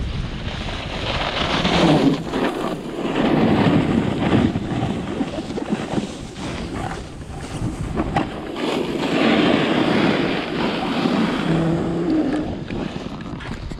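Snowboard sliding and carving on groomed piste snow: a scraping hiss that swells and fades with each turn, with wind buffeting the microphone.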